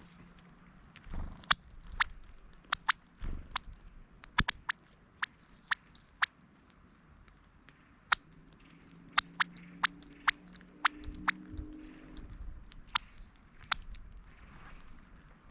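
A quick, irregular run of sharp clicks and ticks from a male northern cardinal right at the microphone on a tray feeder, two to three a second, in two bursts with a short pause between.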